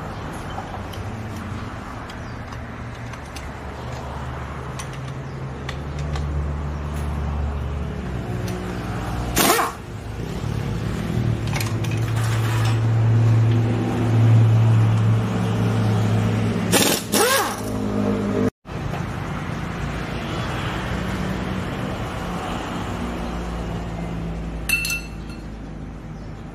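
Hand tools clinking a few times against the metal of an engine and gearbox being worked on, over a steady low machine hum.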